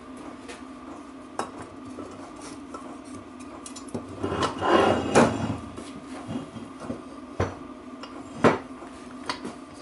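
Metal parts of a rear differential being handled on a workbench: scattered clinks and knocks of steel against the cast housing, with a louder scraping rub about four to five seconds in. A steady hum sits underneath.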